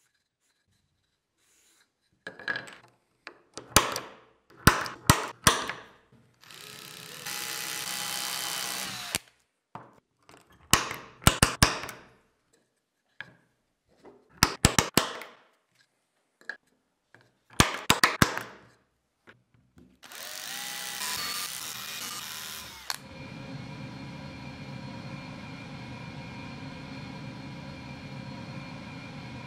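Power drill boring holes in MDF and plywood in a series of short bursts, several with sharp clicks. About twenty seconds in comes a louder run, which settles into a steady power-tool drone.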